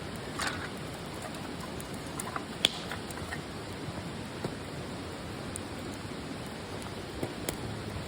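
Wood campfire burning: a steady hiss with scattered crackles and pops, the sharpest pop about two and a half seconds in.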